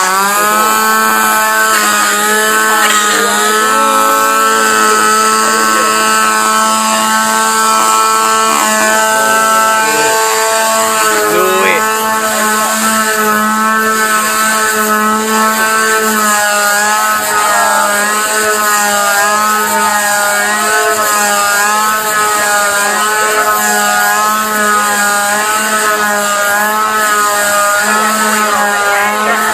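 Small two-stroke gas chainsaw with a 12-inch bar running steadily at part throttle, its throttle held open with tape so the chain does not spin at full speed. The engine note wavers up and down about once a second as the saw is thrown and caught.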